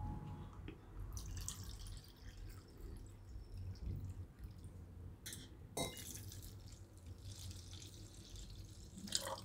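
Water poured into a plastic measuring cup and then emptied from it onto spice powder in a steel bowl: two faint stretches of trickling water, with a couple of light knocks between them.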